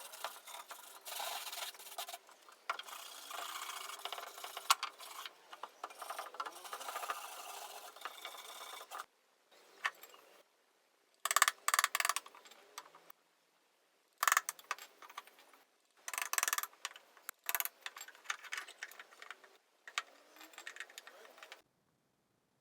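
Hand tools rubbing and scraping on wood: a long run of rasping strokes of about nine seconds, then several shorter bursts that start and stop abruptly.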